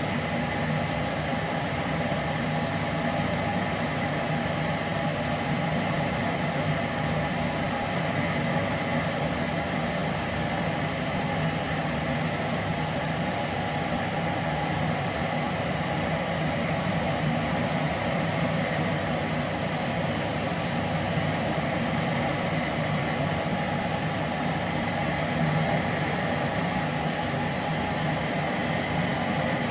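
Vacuum cleaner running steadily at heavy suction: a constant rushing hum with a thin, high-pitched whine held steady above it.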